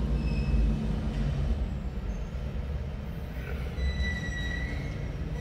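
Diesel engine of a 1997 Freightliner FLD120 semi truck idling steadily, heard from inside the cab, with a faint high squeal about three to four seconds in.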